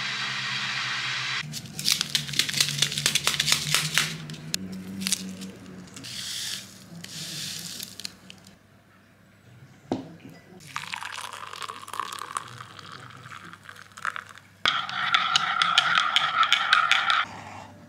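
Crinkling of a plastic-foil instant coffee stick sachet, then coffee granules trickling from it into a ceramic mug. Near the end, hot water is poured from a kettle into the mug for about two and a half seconds.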